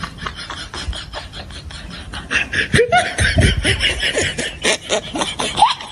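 A person laughing in a string of short rapid bursts, getting louder a little over two seconds in.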